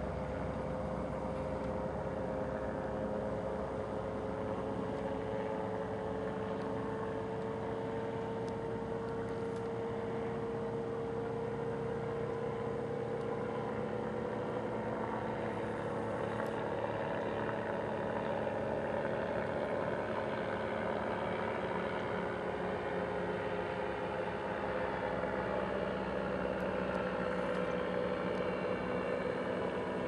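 Ultralight aircraft engine and propeller droning steadily. Its pitch drifts slowly down, then back up, and it grows a little louder in the second half.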